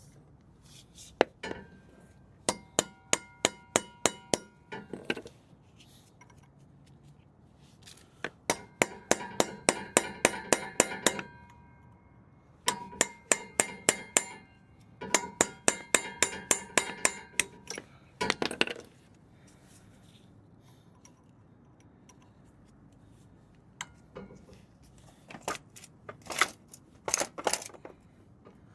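Hammer striking steel in quick runs of ringing metallic taps, about five a second, with short pauses between the runs. The hammer is working the staked collar of the drive-shaft flange nut up, out of the notch, so the nut can be unscrewed.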